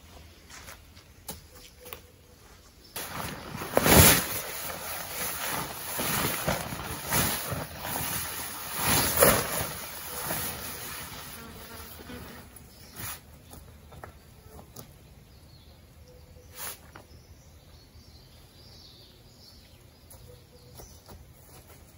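Nylon tent rainfly rustling and flapping as it is unfolded and thrown over a dome tent, loudest about 4 and 9 seconds in. After that only small scattered rustles and clicks.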